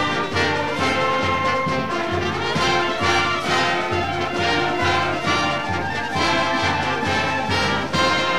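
Orchestral theme music led by brass, playing over a steady beat.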